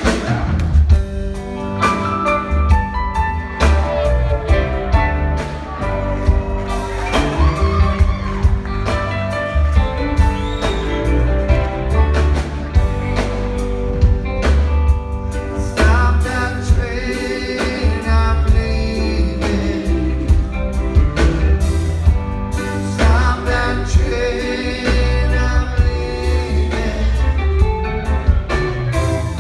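Live rock band playing, heard from the audience: electric guitars, keyboards, bass and drums, with a singing voice over a heavy, pulsing low end.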